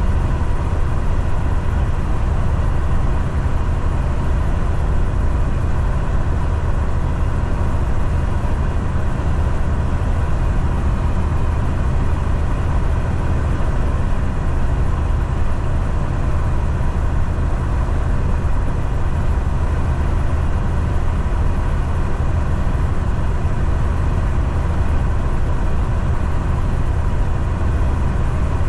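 Steady drone of a semi truck's diesel engine with road and tyre noise, heard from inside the cab while driving.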